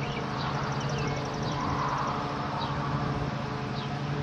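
Honeybees humming steadily around an open hive box full of bee-covered frames, with birds chirping now and then.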